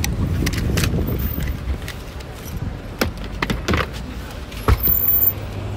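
Road traffic rumbling past an open car boot, with a scatter of sharp clicks and knocks from things being handled at the boot; the loudest knocks come near the end.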